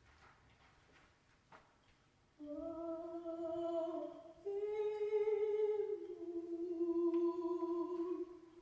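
A woman's voice, unaccompanied, hums a slow wordless melody of a few long held notes, starting about two and a half seconds in.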